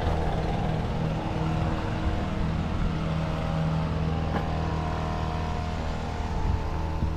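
A small engine running steadily at one even speed, a low hum with no change in pitch.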